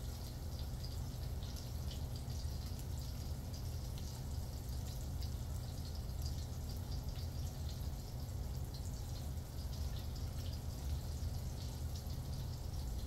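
Cajun sausage sizzling steadily in butter in a frying pan, a dense crackle of fine pops. A steady low hum runs underneath.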